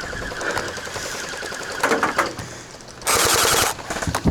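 Electric gel blasters firing on full auto: a fast rattle of shots through the first couple of seconds, then a louder, shorter burst about three seconds in.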